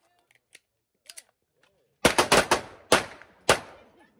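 Pistol gunfire at an outdoor range: a few faint clicks, then about two seconds in a rapid string of about four shots, followed by two more shots about half a second apart, each with a short ringing echo.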